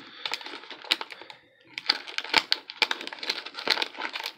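Hands prying and flexing a cardboard trading-card hanger box to open it, the card stock crinkling and giving off quick sharp clicks and rustles. A short lull comes in the first half, then the handling gets busier.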